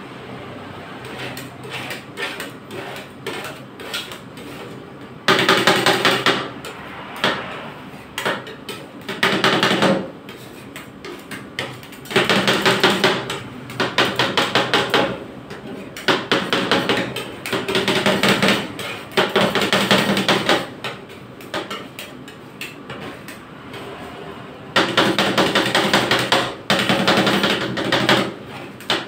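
Two metal spatulas chopping rapidly against the frozen steel pan of a rolled ice cream machine as the ice cream base is chopped up while it freezes. Lighter taps and scrapes come first, then from about five seconds in, loud bursts of fast clatter lasting a few seconds each, with short pauses between.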